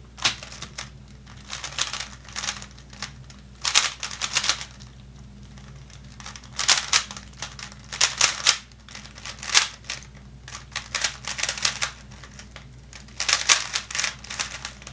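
A 3x3 Rubik's Cube being turned quickly during a solve: plastic layers clicking and clacking in rapid bursts of moves, separated by short pauses.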